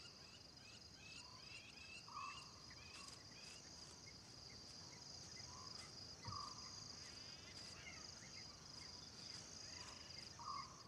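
Faint night-time insect chorus: a steady high-pitched trill, with scattered short chirps and a few brief lower calls now and then.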